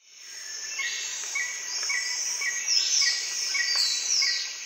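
Outdoor insect-and-chirp ambience fading in: a steady high insect drone with a short high chirp repeating about twice a second, and two falling high sweeps around the middle.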